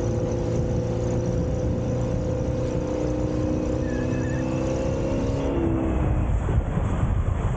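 Outboard motor of a small boat running steadily at speed while towing a wakeboarder. Its note shifts about five and a half seconds in.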